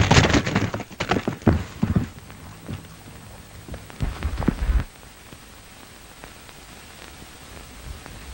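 A horse's hoofbeats at a gallop, thinning out after about two seconds, with a few heavier hoof thuds about four seconds in; after that only the steady hiss of an old film soundtrack.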